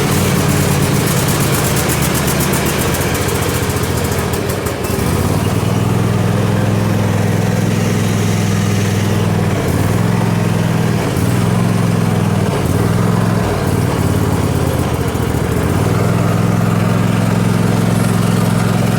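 Craftsman GT5000 lawn tractor's 26-horsepower engine running, its note sagging and recovering several times rather than holding steady. The owner suspects a carburetor fault and says it needs some choke.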